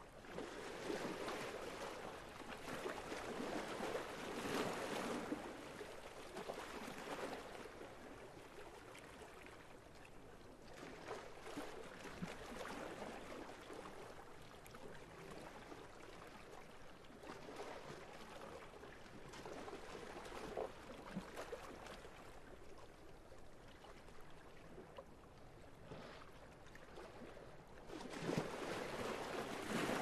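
Small sea waves washing against the waterfront, swelling and ebbing in slow surges. The strongest surges come about a second in and near the end.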